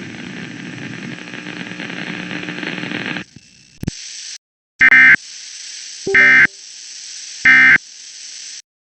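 Emergency Alert System end-of-message code: three short, loud, buzzy digital data bursts about 1.3 seconds apart, signalling that the alert is over. They follow a steady hiss that cuts off about three seconds in.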